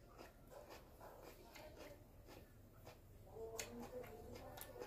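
Faint close-up eating sounds: soft chewing and small clicks of a fork in a plastic bowl. A faint murmuring voice comes in about three and a half seconds in.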